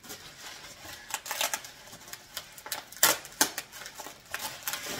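Plastic packaging bag and bubble wrap crinkling and crackling as they are handled, an irregular run of sharp crackles with a couple of louder snaps about three seconds in.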